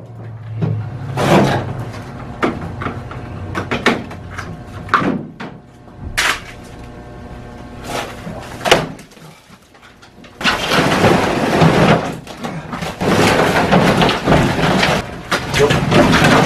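A 2009 Polaris Shift 550 snowmobile being manhandled off a pickup truck: scattered clunks and knocks over a low engine hum that fades in the first few seconds, then long rough scraping from about ten seconds in as the sled is dragged across the ground into the garage.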